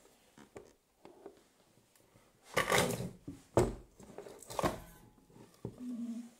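Handling noise: several knocks and clatters of things being moved about on a hard surface. The loudest are a cluster about two and a half seconds in and a sharp knock a second later, with another about four and a half seconds in and a smaller one near the end.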